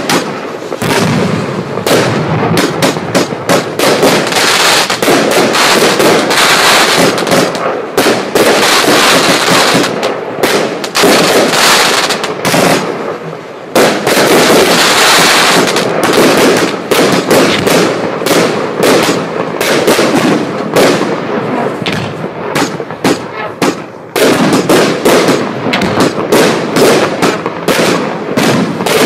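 Celtic Fireworks Fantastic dump cake firing a loud, dense barrage of rapid bangs that barely pauses, with two short lulls about 14 and 24 seconds in.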